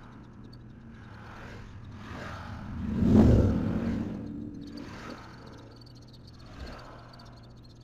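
Traffic sound sped up six times: a run of vehicles passing in quick whooshes, the loudest about three seconds in, over a steady low hum. Faint insects chirp throughout.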